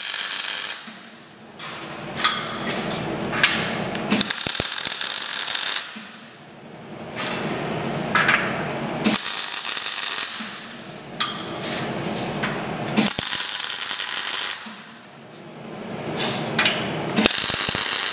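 Electric arc welding on a steel tube, laid down in short stitch welds: the arc runs in bursts of about a second and a half, roughly every four seconds, with quieter pauses and a few small clicks between them.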